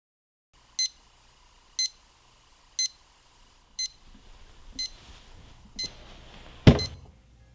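Digital alarm clock beeping: six short high beeps, about one a second. Near the end comes a loud thump, and the beeping stops.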